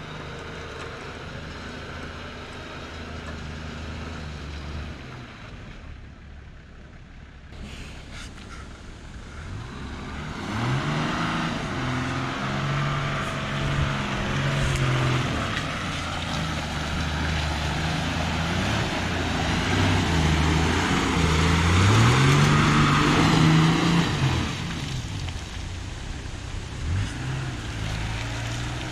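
Toyota LandCruiser 80 Series engine driving through mud, revs rising and falling as it works through the ruts. It grows louder as the truck approaches, is loudest as it passes close by about three-quarters of the way in, then eases off.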